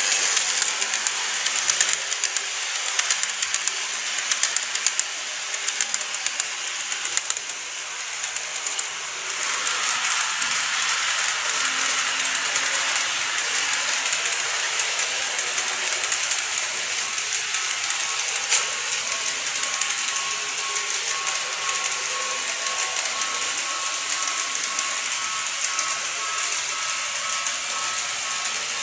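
Model train running on sectional track: a small electric motor whirring with a steady hiss and a fine patter of clicks from the wheels on the rails. The sound changes about a third of the way in, and a faint steady whine joins in during the second half as the red Seibu 9000 series model approaches.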